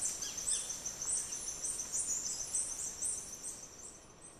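Forest birds giving short, high, thin chirps two or three times a second over a steady, high insect buzz. Both fade toward the end.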